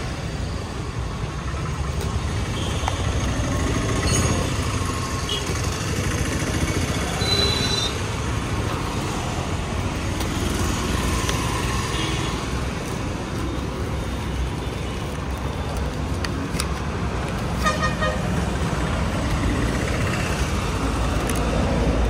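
Street traffic going by, with a steady rumble of vehicles and a few short horn toots, plus occasional clicks and rustles of brake-pad packaging being handled.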